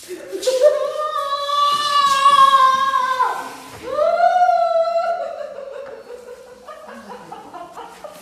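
A woman's loud, drawn-out wailing cry: one long high held cry, a sliding drop in pitch about three seconds in, then a second high cry that trails off into lower, quieter moaning.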